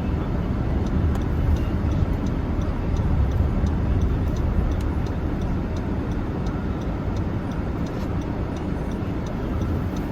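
Car driving on a road, heard from inside the cabin: a steady low rumble of engine and tyre noise, with a faint regular ticking about two to three times a second.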